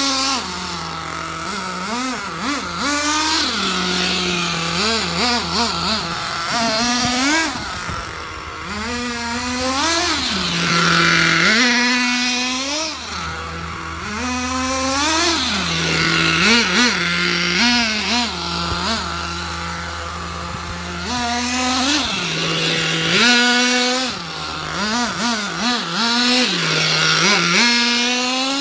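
Small nitro glow engine of a 1/8-scale XTM monster truck running under radio-controlled throttle: it revs up in short bursts, rising and falling in pitch, and drops back to a steady idle between them, again and again.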